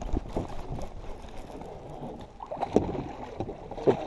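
Water sloshing and gurgling around a fishing kayak, with a few light knocks: one near the start, one just before three seconds in, and one near the end.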